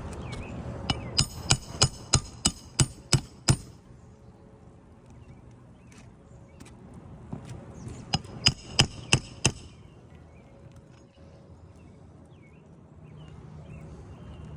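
Hammer blows on a metal nail-driving tool, each with a bright ringing, setting roofing nails back in under a shingle. There is a run of about nine quick strikes, then after a pause about five more.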